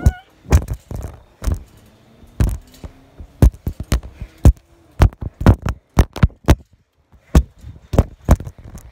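Handling noise from a phone being jostled and knocked about: a string of loud, irregular thumps and knocks on the microphone, roughly one or two a second, with a short lull about seven seconds in.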